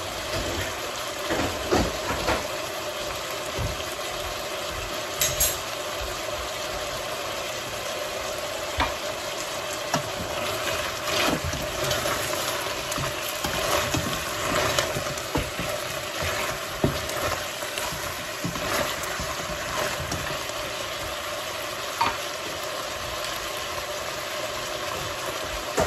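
Chicken wings cooking in oyster sauce in a metal pot with a steady sizzle. Through the middle of the stretch a spatula stirs them, scraping and knocking against the pot.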